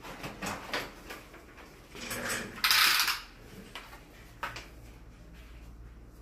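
Handling noises: scattered small clicks and rustles, with one short, harsh noise burst about two and a half seconds in.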